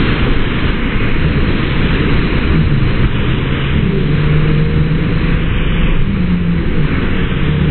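Steady rushing whitewater of an artificial standing surf wave, heard as a dense, even roar, with a faint low hum joining a few seconds in.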